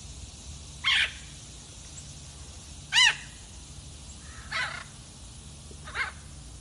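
Red-fronted macaw giving four harsh squawks, each a short arching call, the first two loudest and the later two fainter.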